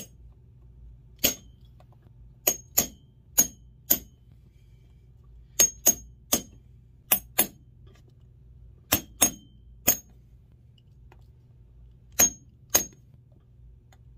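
Hammer tapping heel nails into a boot's new rubber top lift and heel base: about fifteen sharp, ringing metallic taps, irregularly spaced and often in quick pairs.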